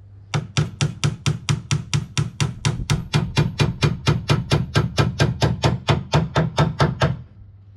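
Hammer driving a nail into timber window beading: a quick, even run of strikes, about five a second, that stops near the end as the nail goes home.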